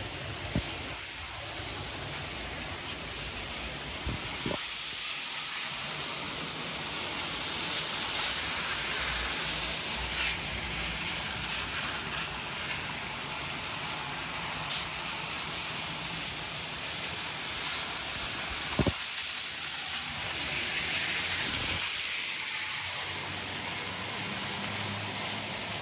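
Model train running on its track: a steady hissing rumble of wheels and motor, with a few single sharp clicks, the loudest about nineteen seconds in.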